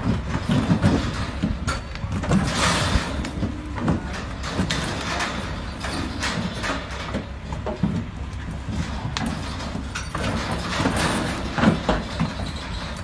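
Hooves of long-horned cattle knocking on a stock trailer's ramp and floor as the animals walk off one by one, with the trailer rattling under their weight; irregular knocks throughout.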